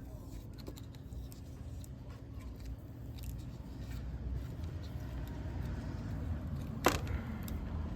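Handling noises from work on a quad's wiring: faint scattered clicks over a low steady rumble, with one sharp knock about seven seconds in.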